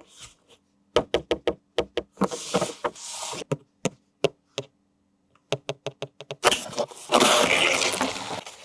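Hard plastic toy and packaging being handled: runs of quick sharp clicks and cracks, then a longer stretch of loud rustling and scraping during the last couple of seconds.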